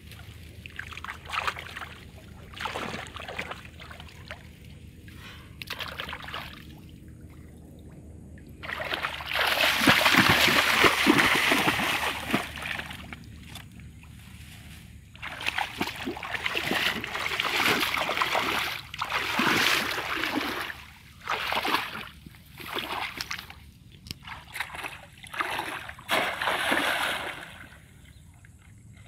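Water splashing and sloshing in irregular bursts as a person wades through shallow muddy water and plunges a woven cone-shaped fish basket into it. The longest and loudest splashing comes about nine to thirteen seconds in, followed by a run of shorter splashes.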